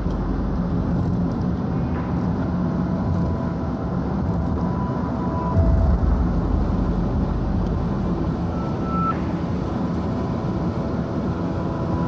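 Car driving at speed, heard from inside the cabin: a steady low road and engine rumble, with one low bump about five and a half seconds in.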